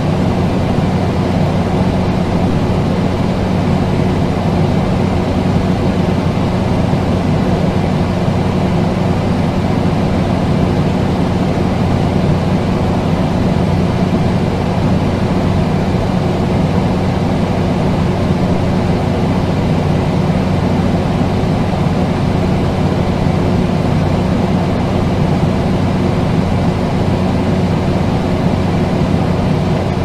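Air conditioner running: a steady low hum under an even rush of air.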